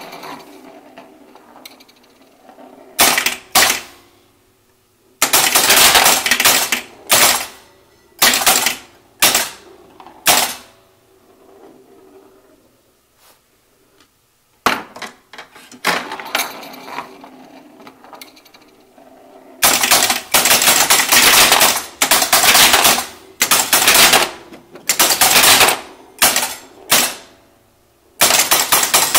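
County Fair horse-race pinball machine's relays and electromechanical mechanisms clattering and clicking in loud bursts as the game resets and runs. There is a quieter lull around the middle, and a run of rapid bursts about one a second in the last third.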